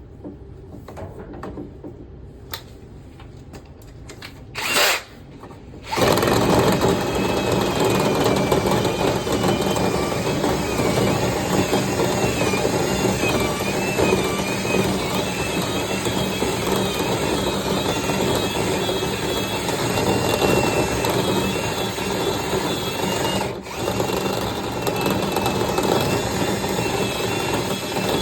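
Power drill spinning a rotary dryer-vent cleaning brush, running steadily with a wavering whine. It starts about six seconds in, after a brief burst a second earlier.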